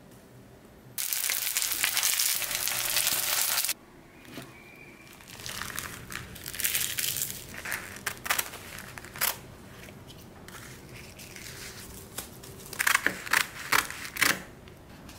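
Scissors cutting through sheets of dried laver (gim), with a run of crisp snips near the end. Earlier, a loud stretch of dry crinkling lasts about three seconds and stops abruptly.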